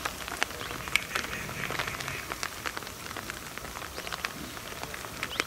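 Light rain: a steady hiss of drizzle with scattered drops tapping irregularly.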